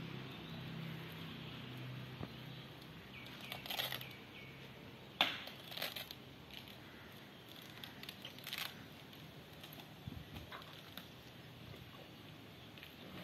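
An Asian elephant tearing and snapping leafy branches as it feeds, heard as scattered crackles and crunches of breaking stems and leaves, the loudest a sharp crack about five seconds in. A low steady hum runs underneath for the first few seconds.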